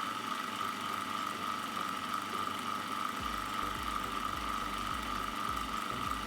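Food processor motor running steadily with a high whine, blending cheese and butter into cracker dough.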